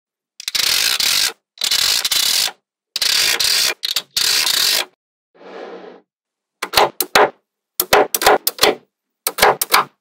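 Small magnetic balls rattling and rolling against each other in four short, loud bursts that each stop abruptly. Over the last few seconds this gives way to quick clusters of sharp clicks as the balls snap together.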